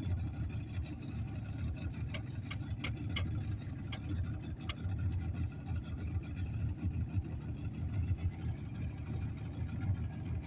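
Boat motor running steadily, a low rumble, with a few short sharp clicks about two to five seconds in.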